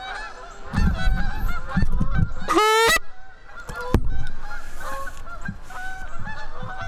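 Geese honking steadily in many short, repeated calls, with one loud, close honk about two and a half seconds in and a sharp knock about a second later.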